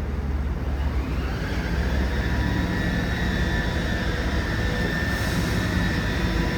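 A steady, loud, low engine drone with a faint high whine above it.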